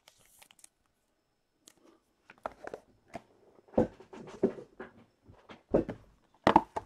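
Hands handling cards and cardboard card boxes on a tabletop: a quiet start, then a run of knocks and thumps, the loudest three near the middle and just before the end.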